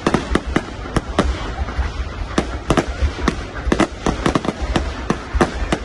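Fireworks going off: a rapid, irregular series of sharp bangs and cracks, several a second, over a low rumble.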